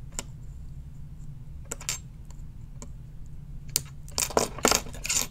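Flush cutters snipping the wire leads of ceramic capacitors on a circuit board: a few separate sharp clicks, then a louder cluster of clicks and clatter near the end.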